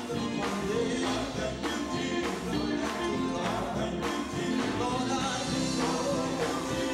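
Live gospel music: a male vocal group singing into microphones over electric guitar and drums, with a steady beat.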